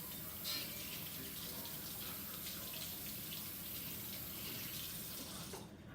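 Kitchen tap running into the sink while a raw chicken breast is rinsed under it, with the water splashing unevenly. The tap is shut off near the end.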